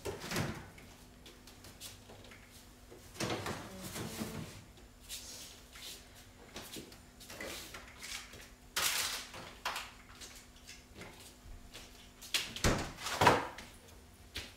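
Refrigerator door opened and groceries set onto its shelves with a series of knocks and clatters, then the door shut near the end, the loudest thud of all. A faint low hum runs underneath until just before the door closes.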